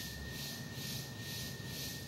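A steady high tone, with a hiss above it that swells and fades evenly about twice a second, over a low hum.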